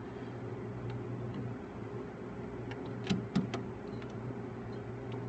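A few light clicks and knocks, about three seconds in, from a hand working up behind a car dashboard to reach the headlight switch's release button, over a faint steady hum.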